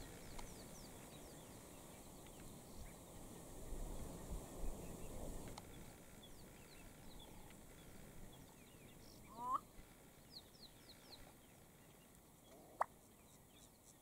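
Male black-bellied bustard giving its advertising call: a short, wavering note that rises in pitch about nine and a half seconds in, followed about three seconds later by a single sharp pop. Small birds chirp faintly in the background.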